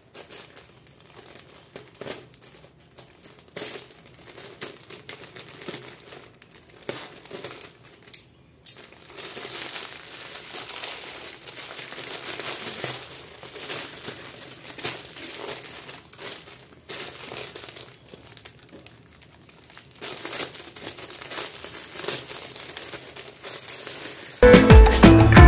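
Plastic packaging crinkling and rustling as a plastic courier bag is cut open with scissors and a garment in a clear polythene bag is pulled out and handled, with scattered sharp clicks. Music comes in near the end.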